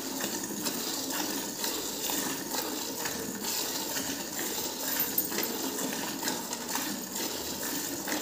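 Hand-milking into a steel bucket: streams of milk squirt into the metal pail in a steady rhythm of about two spurts a second as the hands work the teats.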